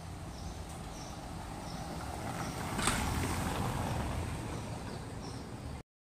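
City street noise, with a vehicle passing that swells to its loudest about three seconds in, where there is one sharp click, then eases off. The sound cuts out abruptly just before the end.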